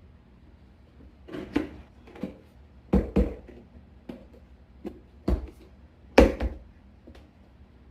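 Irregular knocks and taps on wood, about ten in all, some in quick pairs, the loudest about a third and three quarters of the way through: stair trim being handled and fitted.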